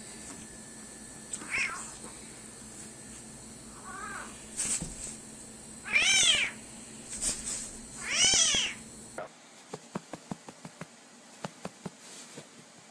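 A cat meowing about six times, each call rising and falling in pitch, the two longest and loudest a little past halfway. After a cut, a run of short, light, irregular clicks or taps.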